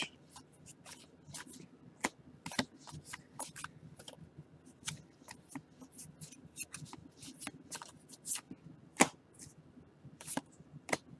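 2019 Topps baseball cards being flipped through and shuffled by hand: an irregular run of light card clicks and snaps, with one sharper snap about nine seconds in.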